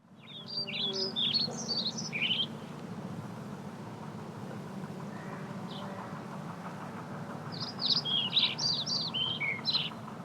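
A songbird singing two quick phrases of high chirping notes, one near the start and one near the end, with a single chirp between, over a steady low hum.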